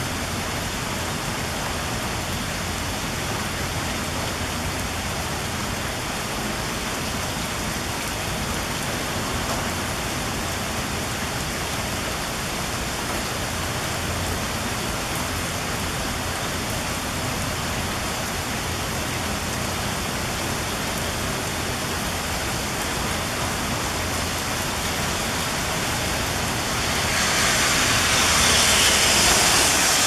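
Heavy rain falling steadily, an even hiss, which swells louder for a few seconds near the end.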